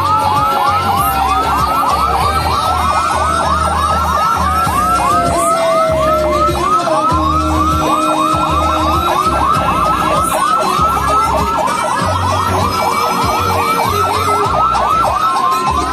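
Electronic sirens sounding a fast yelp, about four to five rising-and-falling swoops a second. Slower falling siren tones overlap it, over a low rumble that comes and goes.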